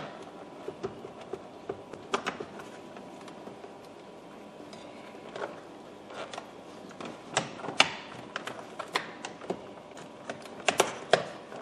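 Irregular sharp clicks and knocks of plastic steering column trim being worked and pried apart by hand, busiest in the second half.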